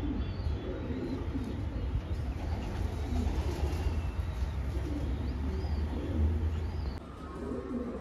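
Homing pigeons cooing softly, over a steady low hum that stops abruptly about seven seconds in.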